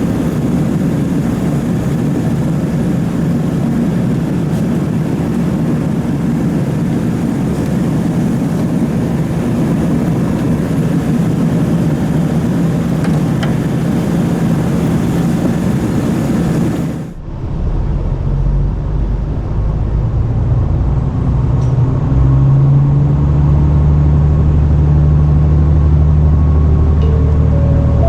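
Interior sound of a diesel railcar on the move: an even running noise of wheels and rails with a low hum, then, after an abrupt change about 17 s in, a strong steady diesel engine drone under power that steps up in pitch about 22 s in, with rising tones near the end as it pulls harder.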